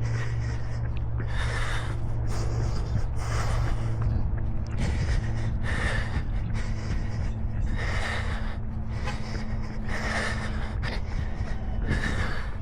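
A runner breathing hard, with a heavy, gasping exhale about every two seconds over a steady low rumble.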